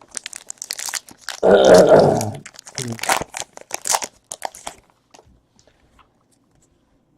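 Crinkling and crunching of a trading-card pack wrapper being torn open and handled: quick crackles for about five seconds, then quiet. A brief voice-like sound comes about one and a half seconds in.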